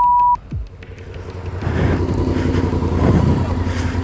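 A censor bleep, one steady tone, cuts off about a third of a second in. Then a motorcycle engine and traffic noise build up and grow louder as the bike gets going.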